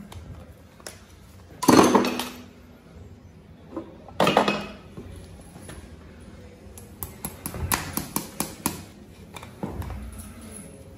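Farrier's driving hammer on horseshoe nails in a racing plate: two loud metallic strikes a couple of seconds apart, then a run of quick light taps.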